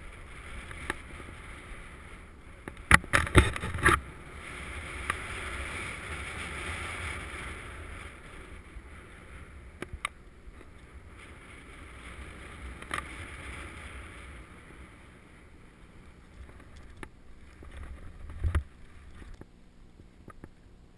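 Skis sliding through deep powder snow in a steady hiss that swells and fades as the skier moves. There are a few loud, sharp knocks about three to four seconds in, and a single thump near the end.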